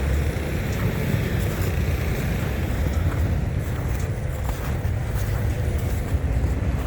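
Steady low rumble of motor vehicles, with a constant noisy hiss over it.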